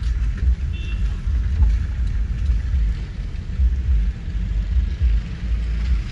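Low, uneven rumble of a car driving through heavy rain, heard from inside the cabin, over a faint hiss of rain and spray on the wet road. A short, faint high tone comes about a second in.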